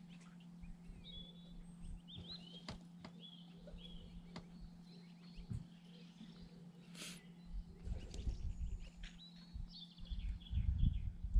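Scattered high bird chirps and peeps over a steady low hum, with wind buffeting the microphone from about eight seconds in, heavier near the end.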